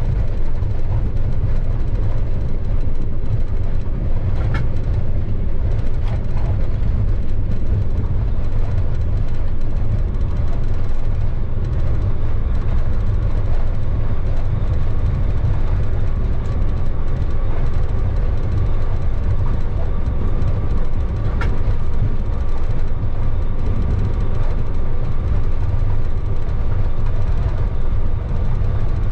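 A light locomotive running along the line, heard from inside its cab: a steady low rumble of the locomotive and its wheels on the rails. A few short sharp ticks come through, the clearest about four, six and twenty-one seconds in.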